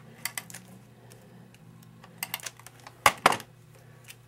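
Light clicks and taps of paper cutouts and a plastic adhesive dispenser being handled on a tabletop, with two sharper clicks about three seconds in.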